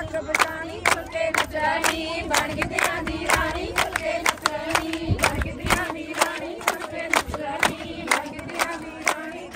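Group of women singing Punjabi boliyan in chorus for giddha, over steady rhythmic hand claps about twice a second.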